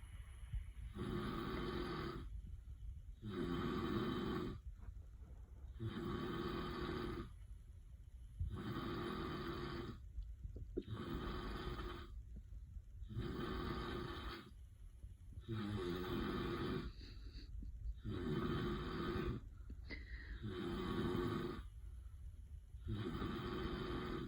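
A man snoring steadily in deep sleep: loud rattling snores on each breath, evenly spaced about every two and a half seconds.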